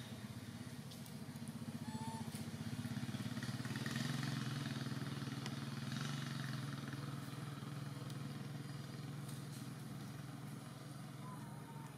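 A motor vehicle's engine running, a low drone that swells to its loudest about four seconds in and then slowly fades. Two faint short chirps, one about two seconds in and one near the end.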